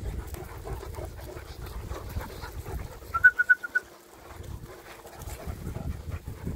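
A quick run of five short, high chirps about three seconds in, over a low rumble of wind on the microphone.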